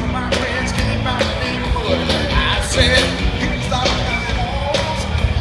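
Loud amplified live music: a band with a singer, drums and bass, heard from within a festival crowd.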